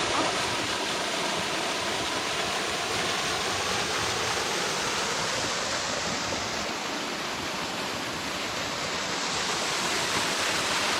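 Davidson's Linn, a small waterfall on the Usway Burn, giving a steady rush of falling water.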